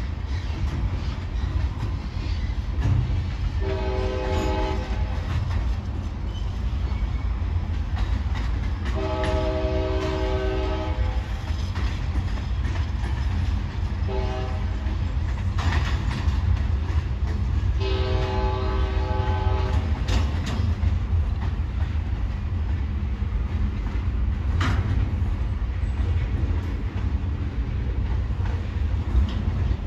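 Freight train cars rolling past with a steady low rumble and clattering wheels, with a few sharp clanks. Meanwhile the locomotive's multi-chime air horn sounds four blasts: long, long, short, long. This is the standard warning for a road grade crossing ahead.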